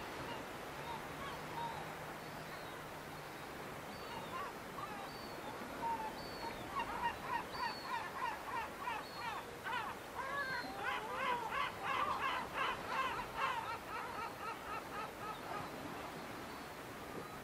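Gulls calling. A few scattered calls come first, then a fast run of repeated calls in the middle that dies away before the end, over a steady outdoor hiss.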